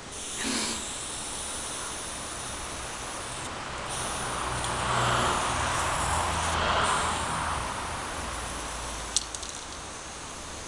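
Aerosol spray-paint can spraying onto asphalt: a long continuous hiss that breaks off briefly twice and swells louder in the middle, with a single sharp click near the end.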